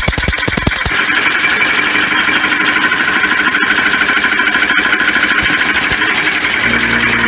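Homemade compressed-air motor with a ring rotor running fast. Its air pulses are at first a rapid clatter, then about a second in they blur into a steady hissing rattle. A steady low hum joins near the end.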